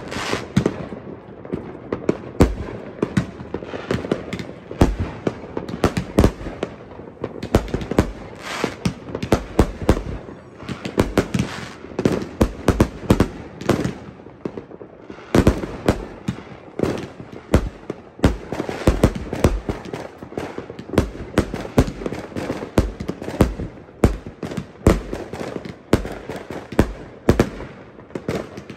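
Aerial fireworks going off in a continuous barrage: many sharp bangs and crackles, several a second, in an irregular run with no break.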